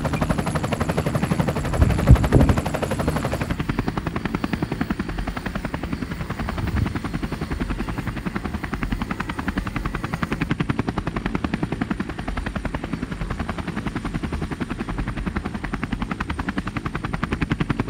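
Blade 350 QX3 quadcopter's electric motors and props spinning up for take-off, with the buzz loudest about two seconds in as it lifts off. It then holds a steady, fast-pulsing buzz as the quad hovers and climbs.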